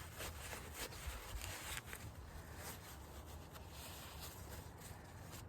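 Faint rubbing and scrubbing strokes as the Toyota 22RE's air intake (idle air) valve is cleaned by hand, over a low steady hum.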